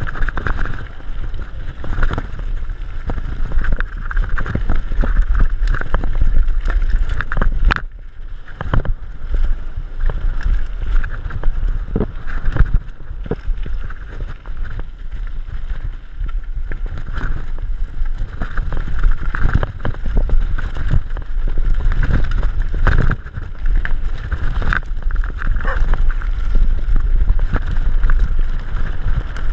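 Wind buffeting the microphone of a camera on a mountain bike riding over a gravel track, with the tyres crunching on loose stones and frequent knocks and rattles as the bike jolts over bumps.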